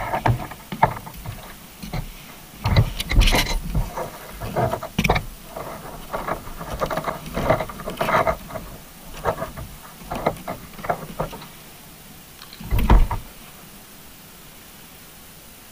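Irregular knocks, bumps and scrapes heard through an underwater camera housing as a fish bumps and brushes against the camera rig on the seabed. The loudest cluster comes about three seconds in, with a last sharp knock near the end, after which only a faint steady hiss remains.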